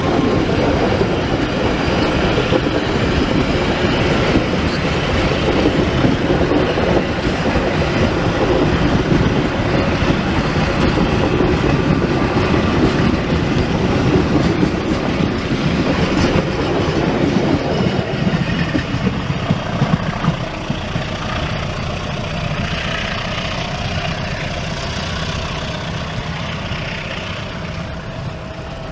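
Krakatau passenger train's coaches rolling past on the rails, wheels clattering over rail joints, gradually fading after about twenty seconds as the train pulls away.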